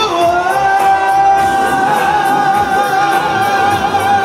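Male singer performing live into a microphone over a dance-music backing track, holding one long high note over a steady beat.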